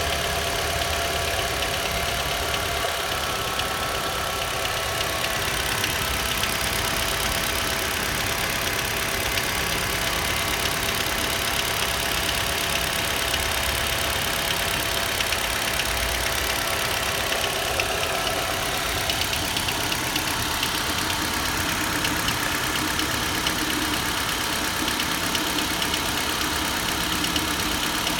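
Nissan Juke's 1.6-litre HR16DE four-cylinder petrol engine running during warm-up, with a rapid light ticking knock over the engine note. The knock shows up around 1000–1200 rpm; the dealer says it is the fuel injectors ticking and normal, which the owner doubts.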